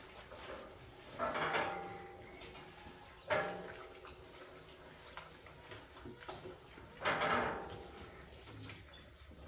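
Piglets feeding at a hopper feeder with a metal frame: a sharp clank about three seconds in as the feeder is knocked, with two short, louder animal calls, one a little over a second in and one about seven seconds in.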